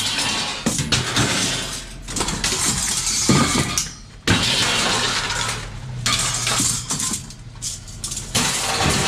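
Scrap metal clattering and crashing in irregular bursts as it is unloaded, over a steady low engine hum.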